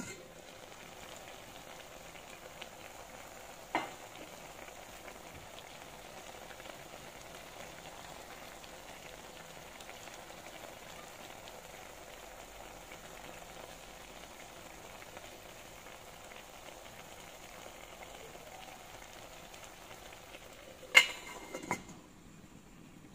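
Pot of fish steaming over the heat: a steady hiss of the liquid boiling under it. A sharp metal tap about four seconds in, and near the end the metal lid clanks loudly back onto the pot.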